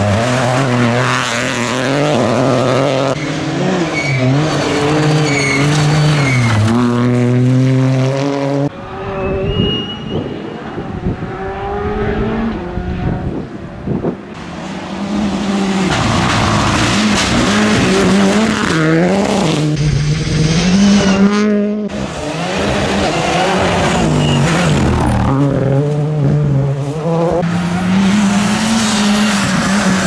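Rally cars at full throttle on a gravel stage, one after another: each engine revs up and drops back at every gear change, over a wash of loose gravel under the tyres. The sound changes abruptly several times as one car gives way to the next.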